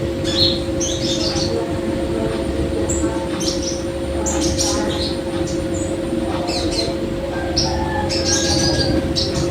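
Songbird known locally as a sogon calling in many short, quick chirps and chattering notes, over a loud steady low drone.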